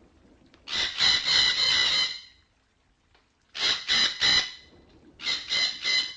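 Red-breasted parakeet giving harsh, rapidly repeated squawking calls, the flock-gathering call, in three bouts: about a second in, near the middle, and near the end.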